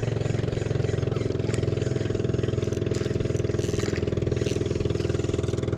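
Small boat engine running steadily at an even idle, with no change in speed.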